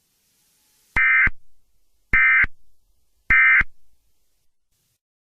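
Emergency Alert System end-of-message (EOM) data bursts: three short, rasping two-tone digital chirps just over a second apart, each trailed by a faint echo, marking the close of the alert.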